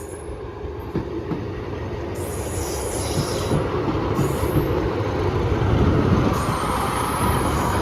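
A pair of Class 153 single-car diesel multiple units running slowly into the platform. The diesel engines and wheel rumble grow louder, and short high-pitched wheel squeals come several times.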